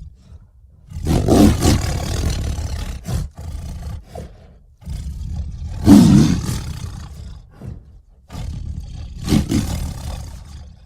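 Cartoon mongoose sound effect: an animal roar, heard three times. Each roar starts loud and fades away, and the last one cuts off abruptly.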